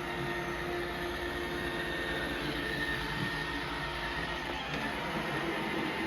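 Roomba i5+ robot vacuum running on carpet: a steady whir of the suction motor and brushes, with a few held tones through it.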